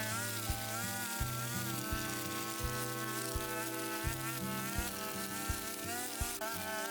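Background music with a steady beat of about one and a half beats a second, stepping bass notes and a buzzy, wavering lead line.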